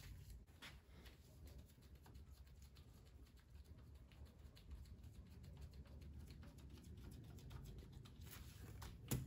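Faint, quick clicking of a hand wrench loosening the half-inch bolts on the thermostat housing of a Mercury 135 BlackMax V6 outboard, with one sharper click near the end.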